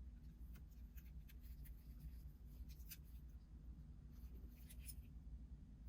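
Faint, scattered small clicks and scraping of precision tools on an iPhone XR's internal metal bracket as the screen connector bracket is fitted back in place, with a few quick ticks near the end.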